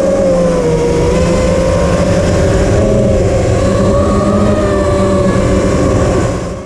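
5-inch FPV quadcopter's brushless motors (PyroDrone Hyperlite 2207.5 2522KV) and propellers whining in flight, the pitch wavering up and down with the throttle, over a low wind rumble on the onboard camera's microphone. The sound fades out near the end.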